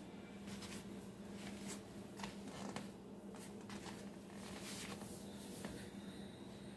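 Faint steady hum of a kitchen oven running while it bakes, with scattered light clicks and rustles.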